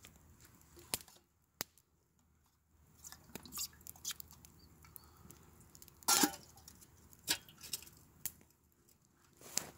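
A man eating and drinking from a metal canteen cup: sips and mouth sounds with scattered small clicks and rustles. The loudest is a short noise about six seconds in.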